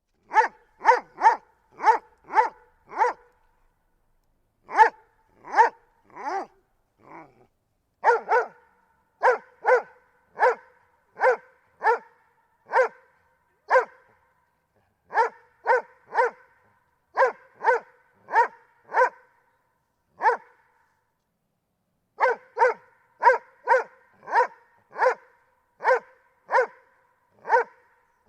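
Doberman barking: short, sharp single barks in bouts of several, about two a second, with brief pauses between bouts. A quieter, lower sound comes about seven seconds in.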